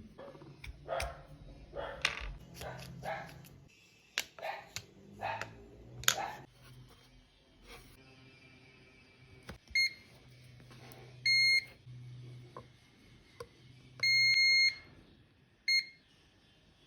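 Clicking and rustling of things being handled, then an electronic beeper sounding four times with one steady high tone: a short beep, a slightly longer one, a longer one of under a second, and a last short one.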